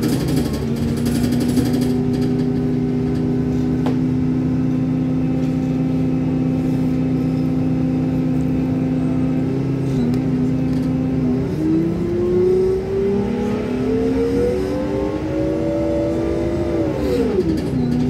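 Bus engine heard from inside the cabin. It runs with a steady drone for about ten seconds, then rises in pitch as the bus accelerates, and drops sharply near the end.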